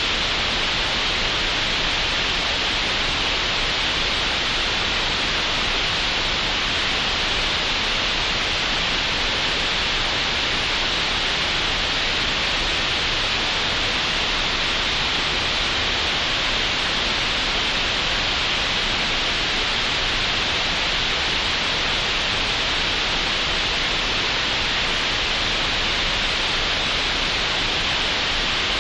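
Steady green noise generated in Audacity: an even, unchanging hiss with no events, strongest in the upper middle of the range.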